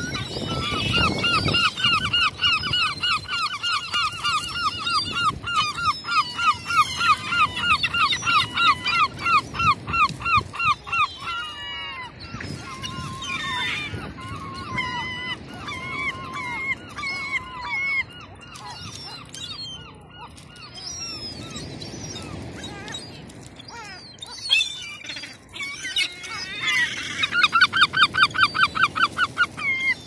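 Herring gulls calling: long runs of rapid, evenly repeated whining calls, several a second. In the middle the calls become scattered and uneven, and a rapid run starts again near the end.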